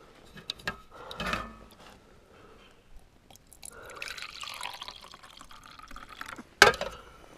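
Coffee poured from a stainless steel pot into a cup: a few seconds of soft trickling and splashing. There are metal clinks from the pot about a second in and a sharp clink near the end.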